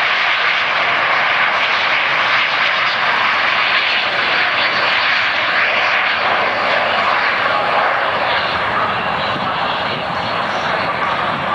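L-39 Albatros jet trainers taking off, their turbofan engines giving a loud, steady jet noise. It eases off slightly near the end.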